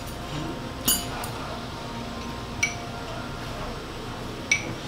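Tableware clinking at a meal: about four sharp clinks of chopsticks, porcelain dishes and glasses, the loudest about a second in.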